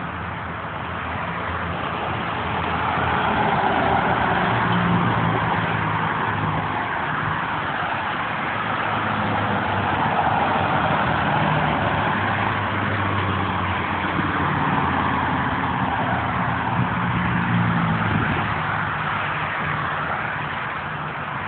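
Freeway traffic going by close at hand: a steady rush of tyre and engine noise with a low engine hum beneath it, swelling and easing as vehicles pass one after another.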